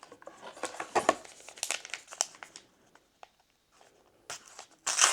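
Foil booster pack wrapper crinkling in the hands, crackling irregularly for a couple of seconds, then a louder crackle near the end.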